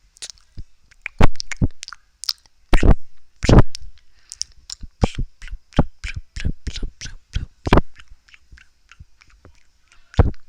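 Close-miked ASMR mouth sounds: an irregular run of wet tongue clicks and lip smacks, a few louder ones in the first four seconds and another near the end.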